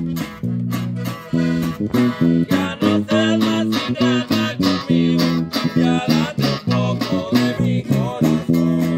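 A small norteño-style band playing a song: button accordion, acoustic guitars and electric bass over a steady beat from a snare drum.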